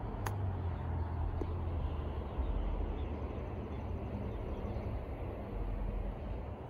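A sand wedge strikes a golf ball on a chip shot: one sharp click about a third of a second in. Under it, a steady low rumble continues.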